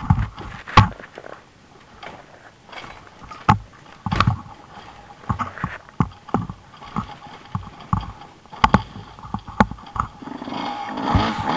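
Irregular knocks, scrapes and crunches of loose gravel and rock as an off-road bike and rider move about on a stony hillside. A steadier, louder noise builds near the end.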